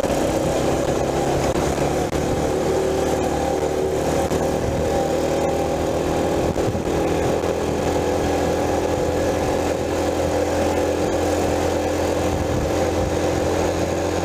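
Mini bike's small single-cylinder engine running at steady high revs under way, held near its top speed.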